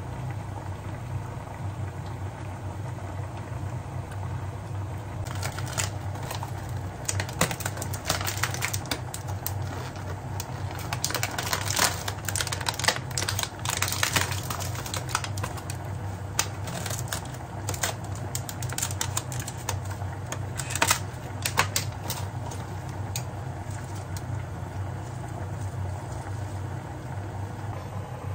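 Crinkling plastic packaging of fresh basil being handled: a run of quick clicks and crackles starting a few seconds in and thinning out well before the end, over a steady low hum.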